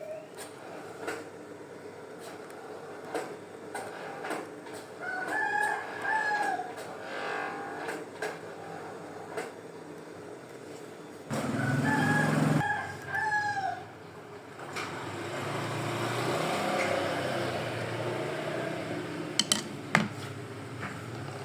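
A rooster crowing twice, about five seconds in and again about eleven seconds in, with scattered light clicks and knocks around it.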